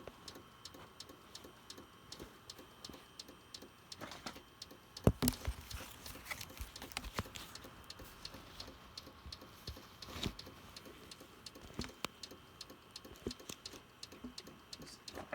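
Compaq desktop computer making a fast, regular clicking, several ticks a second without let-up. A few louder knocks from handling come through about a third of the way in and again later.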